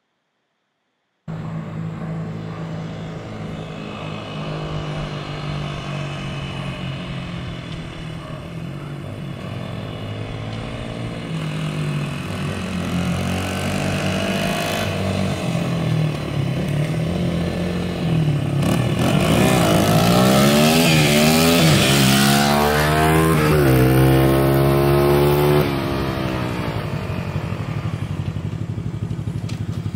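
Small dirt bike engines running, getting louder as the bikes come closer, after a second of silence. About two-thirds of the way through, the engine pitch rises and falls several times as a bike is revved, the loudest part, then the sound drops back to a steadier running note.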